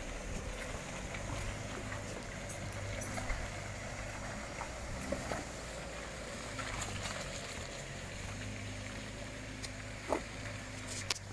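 A 4WD ute's engine running steadily at low revs as it crawls up a muddy track, with a few sharp clicks and knocks, the clearest near the end.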